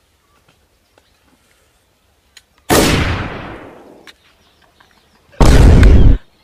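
Two edited-in sound-effect hits, explosion-like. Nearly three seconds in comes a sudden bang that dies away over about a second and a half. Near the end comes a second, very loud, deep boom that lasts under a second and cuts off sharply.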